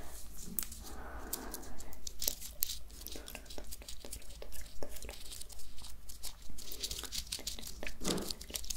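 Close-miked handling of small glass flasks and their white plastic caps: a dense, irregular run of sharp clicks, taps and crackles from fingers and nails on the plastic and glass.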